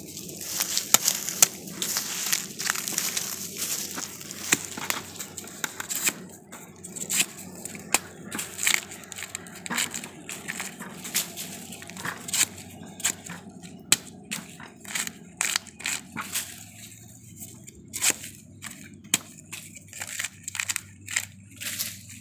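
Fresh bamboo shoots being peeled: a knife cutting into the tough husk and the stiff sheaths tearing and crackling as they are stripped off. There is a dense crackle at first, then a run of sharp snaps several times a second.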